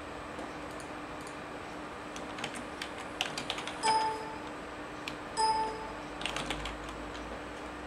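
Computer keyboard being typed on in scattered runs of clicks, with two short beeps about a second and a half apart in the middle. A steady low hum runs underneath.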